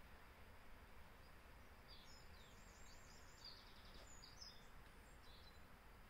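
Faint, high-pitched small songbird twittering, including a quick trill, from about two seconds in to about five seconds in, over a steady low background hum.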